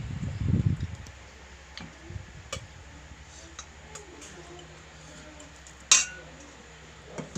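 Tableware sounds during a meal: a muffled low burst in the first second, scattered light clicks, then one sharp clink of a utensil against a dish or glass, ringing briefly, about six seconds in.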